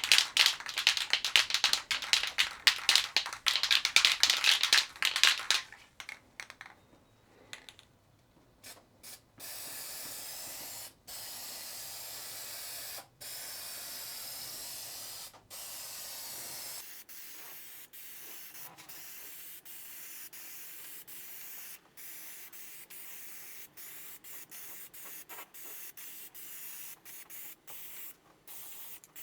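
A wire brush scrubs loose paint and surface rust off bare steel for several seconds. Then an aerosol can of rust-neutralizing spray paint hisses in long bursts broken by brief pauses, and later sprays more quietly in many short bursts.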